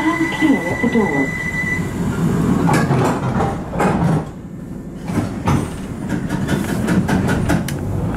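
Bakerloo line tube train running on the rails. A steady high whine sounds for the first two seconds, then there is a continuous rumble with irregular clacks of wheels over rail joints.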